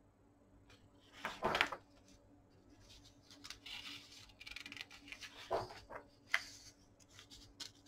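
A large glossy page of a hardbound book being turned: a loud paper swish about a second in, then softer rustling and a few sharp little clicks as hands handle the pages.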